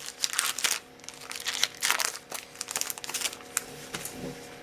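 Foil wrapper of a Yu-Gi-Oh booster pack crinkling in irregular rustles as it is torn open. The rustling dies down about three and a half seconds in.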